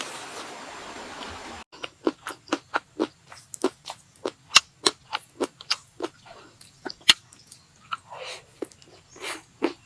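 Close-miked crunchy chewing and biting, sharp separate crunches at about two to three a second. A steady hiss cuts off abruptly about a second and a half in, just before the crunching starts.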